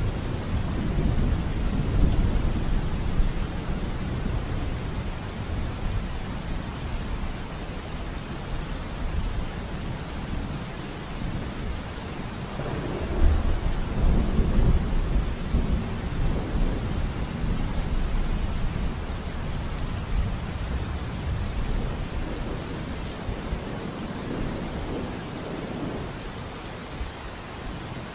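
Steady rain with low rolling thunder, the thunder swelling about halfway through.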